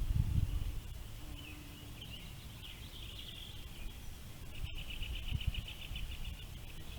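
Birds singing outdoors: scattered high chirps, and a fast trill of short repeated notes a little after halfway. A low rumble of wind or handling noise is heard at the start.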